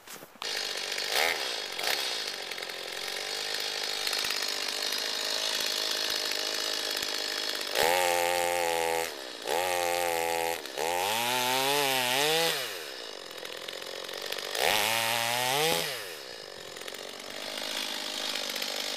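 Stihl chainsaw idling, then opened to full throttle in four bursts as it cuts through brush branches, one rising and falling in pitch. It drops back to a steady idle near the end.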